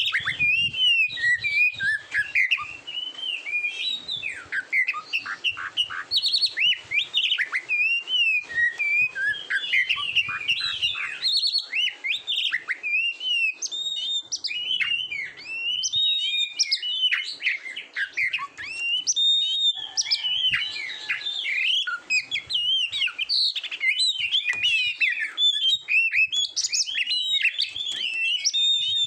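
Oriental magpie-robin (kacer) singing a continuous, varied song of quick whistled notes, trills and chattering phrases that rise and fall without pause.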